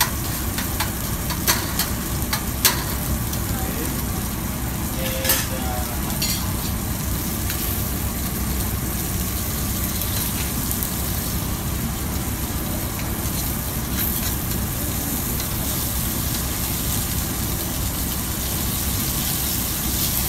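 Chicken pieces sizzling as they sear in oil in a paella pan, over a steady low rumble. Metal tongs click against the pan a few times in the first five seconds or so.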